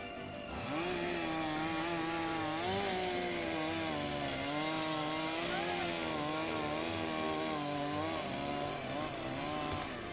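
Chainsaw running at high revs and cutting wood, starting about half a second in, its pitch wavering up and down as the cut loads it.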